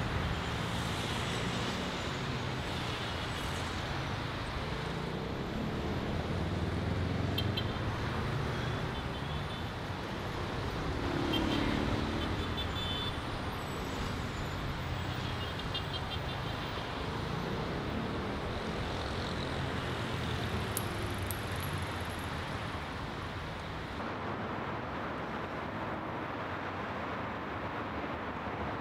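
Steady city road traffic: cars and trucks passing on the street below, with one vehicle swelling louder about midway through.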